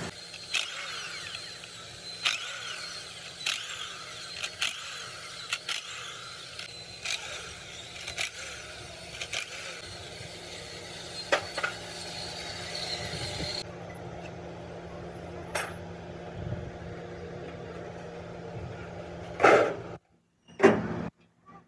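Workshop tool work: scattered sharp knocks and clicks over a steady hum. The background changes about two-thirds through, and two louder knocks come near the end.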